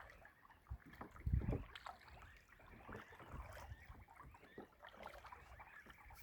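Water lapping and splashing against a kayak as it is paddled, with a stronger splash about a second and a half in.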